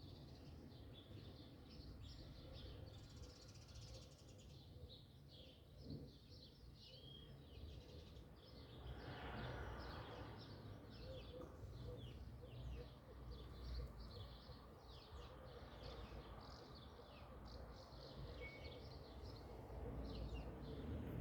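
Faint bird chirping: many short, high calls that come thick and fast from about eight seconds in, over a low background rumble.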